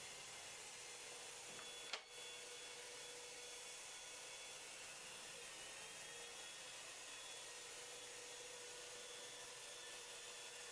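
Faint, steady whir and hiss of an electric HVLP paint sprayer spraying Plasti Dip, with one sharp click about two seconds in.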